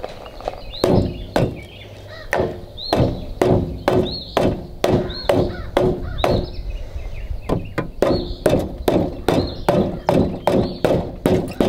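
A soft-faced mallet tapping repeatedly on the cast crankcase cover of a Kohler Command CV15 engine, about two to three blows a second, each with a short metallic ring. The blows are knocking the cover loose from the engine block.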